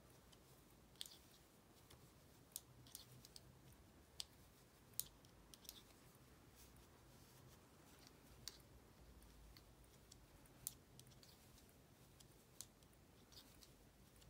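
7 mm circular knitting needles clicking faintly and irregularly as stitches are purled.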